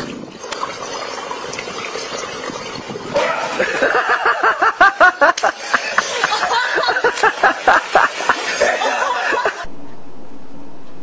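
Swimming-pool water sloshing, then a person laughing hard in rapid bursts for about six seconds. It gives way to a steady hum near the end.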